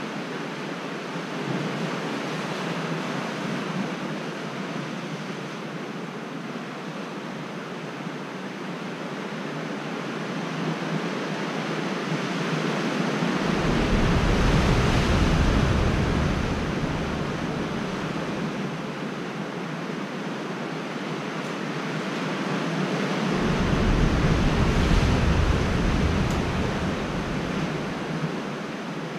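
Sea surf washing against a rocky shore: a steady rush that swells louder twice, about halfway through and again near the end, with a deep rumble each time.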